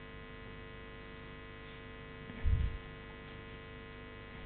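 Steady electrical mains hum in the microphone and sound system, with a short low thump a little past halfway.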